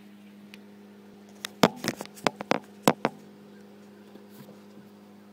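Handling noise: a quick cluster of about nine sharp knocks and clatter, about a second and a half in, as the phone recording is set down on a wooden plank, over a steady low hum.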